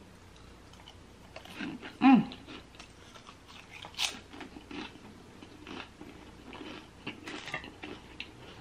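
Close-up eating sounds of a person biting and chewing a cracker topped with a sauced oyster: crackly crunches and wet mouth clicks, with one sharp crunch about four seconds in. A short hum of the voice about two seconds in is the loudest sound.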